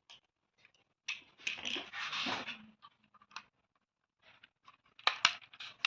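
Irregular scraping and rustling, with scattered small ticks and a couple of sharp clicks near the end.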